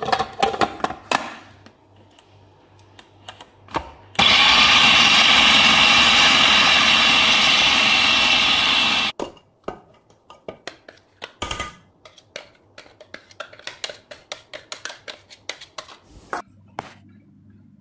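Electric food processor motor running for about five seconds, grinding cooked chicken and lentils together, starting about four seconds in and cutting off sharply. Before and after it come scattered clicks and taps of a metal spoon against a steel bowl.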